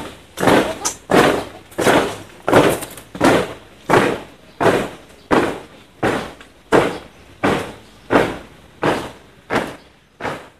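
Troops marching in step, their boots striking the pavement together in a steady beat of about three strikes every two seconds, each strike dying away quickly. The strikes grow fainter near the end as the column moves away.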